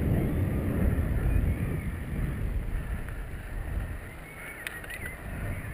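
Wind rumbling on the microphone of a moving bicycle, dying away over about four seconds as the ride slows to a stop. A few faint, short, high chirps come near the end.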